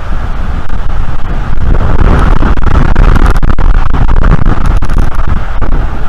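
Strong wind buffeting the nest camera's outdoor microphone: a loud, continuous low rumble that gusts a little harder about two seconds in.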